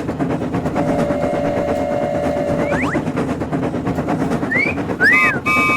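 Animated train sound effect: a steady running rumble throughout, with a held tone about a second in and short rising and arching whistle-like glides in the second half.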